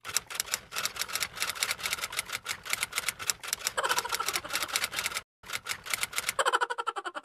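Typing sound effect: rapid, even key clicks, several a second, with a brief pause about five seconds in.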